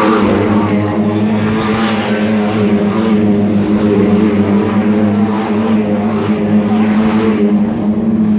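Engines of a pack of Lightning Rod oval racing cars running at speed as they stream past on the track, several engines together in one steady, loud drone.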